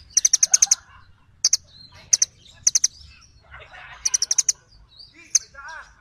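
Small songbird giving sharp, high chirps: a quick run of about six near the start and another about four seconds in, with single and paired chirps between. Softer twittering of other birds runs underneath.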